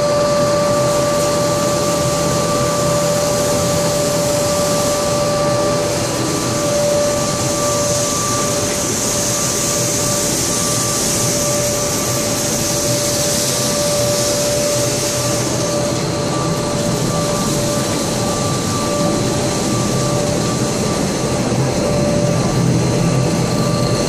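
Steady industrial machinery noise from an aluminium chip drying and melting furnace line: a constant two-note hum over a broad hiss.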